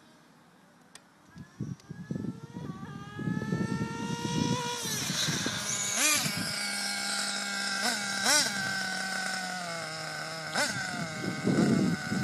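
Small two-stroke engine of a combustion-powered radio-controlled car accelerating, its whine rising steadily in pitch for a few seconds, then held high with several quick throttle lifts that dip and snap back. Bursts of low rumble run underneath.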